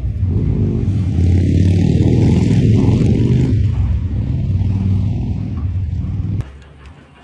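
A loud engine running steadily, which stops abruptly about six seconds in.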